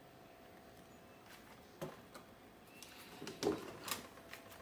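Handling noise from a plastic lamp housing: scattered light clicks and knocks, the loudest about three and a half seconds in as the lamp is stood upright on a metal-topped workbench.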